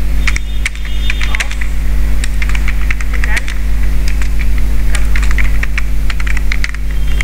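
Typing on a computer keyboard: a quick, irregular run of key clicks, over a steady low electrical hum.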